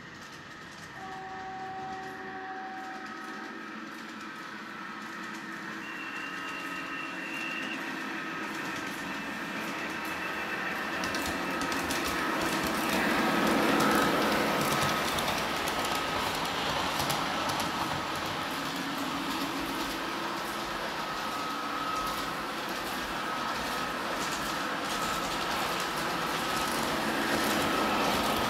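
Model train, led by a model of a DR class 132 'Ludmila' diesel locomotive, running on the track. It comes closer and grows louder until it passes close by about halfway through, with motor hum and the wheels rattling and clicking over the rails, then keeps running past. A couple of short steady tones sound near the start.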